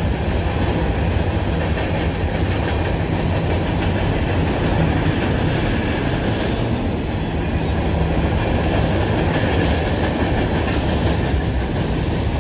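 Freight train of tank cars, hopper cars and loaded flatcars rolling across a railroad bridge overhead: a loud, steady rumble of wheels and cars on the bridge.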